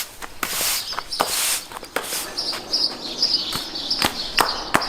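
A broom sweeping in a series of short swishing strokes, with small birds chirping throughout.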